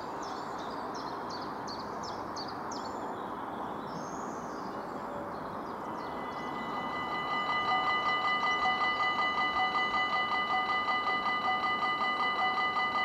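A bird chirps repeatedly over a steady outdoor rustle. About six seconds in, the level crossing's electronic warning bell starts and rings in rapid, even strokes, signalling an approaching train.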